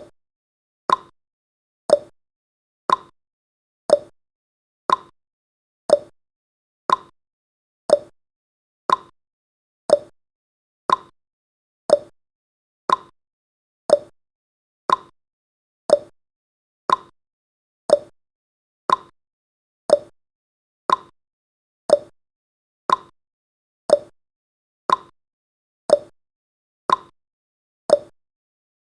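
Countdown timer's clock-tick sound effect: one sharp tick each second, with silence in between.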